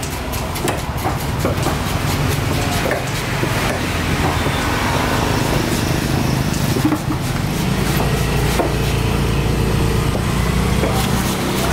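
An engine runs steadily under scattered knocks and scrapes of a curved knife and a scraper tool on a wooden chopping block as a pomfret is scaled and cut.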